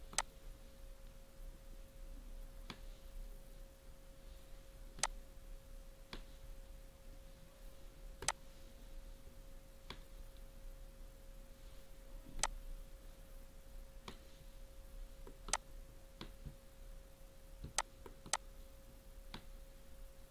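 Faint, irregular sharp clicks, about a dozen, from a laptop's touchpad and keys as objects are copied and placed, over a steady faint tone.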